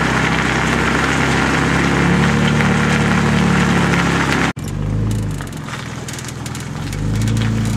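Pickup truck engine running under way with road and wind noise while towing another truck. It breaks off sharply about halfway through, returns quieter, and swells again near the end.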